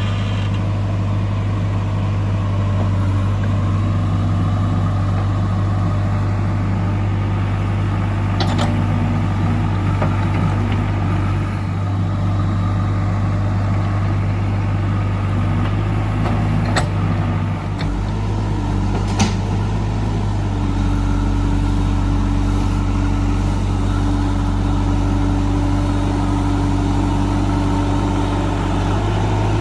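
JCB 3DX backhoe loader's diesel engine running steadily, with a few brief sharp clicks. About two-thirds of the way in, a steady higher-pitched hum joins the engine note.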